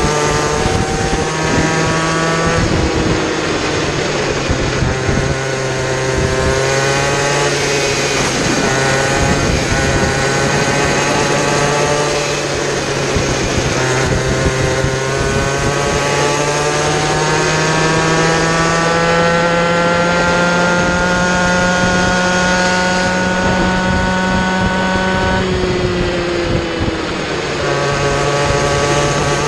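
Onboard sound of a kid kart's small two-stroke engine at racing speed, its pitch climbing along the straights and dropping as it slows for corners, most clearly a dip a little before the end.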